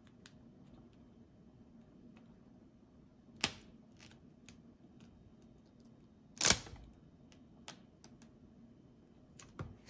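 Faint handling noise as tint film is smoothed and lined up on a plastic headlight lens: a few sharp clicks and taps, the loudest about three and a half and six and a half seconds in, over a low steady room hum.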